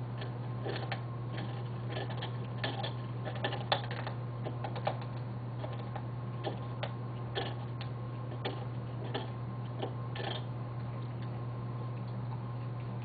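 A dog gnawing a large bone, its teeth making irregular sharp clicks and cracks that thin out in the last few seconds, over a steady low electrical hum.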